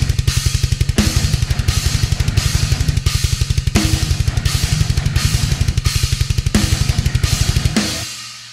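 Rock drum kit played hard: a very fast, even double-kick bass drum run under snare and cymbal, with a loud crash accent every second or few. It stops short on a final hit that rings out and fades.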